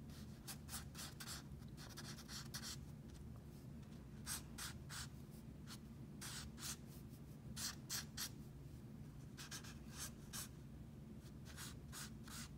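Faint, scratchy strokes of a Zebra Mildliner highlighter-style pen's felt tip drawn across sketchbook paper, many short strokes in quick irregular succession, as a loose underdrawing is sketched.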